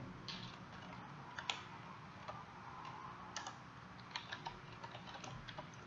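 Faint computer keyboard typing: about a dozen scattered, irregular key clicks.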